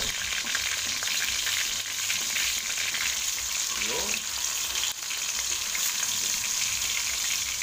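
Tuna steak shallow-frying in hot cooking oil in a metal wok: a steady sizzle as the first side sears.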